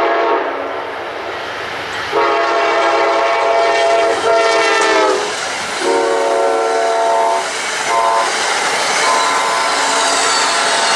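Amtrak passenger train passing at speed while its locomotive's chime horn sounds for the grade crossing in long blasts with one short one: a blast ending about half a second in, a long one whose pitch drops as the locomotive goes by, another long one, a short one, and a long one near the end. Under the horn, the passing cars make a steady rushing clatter.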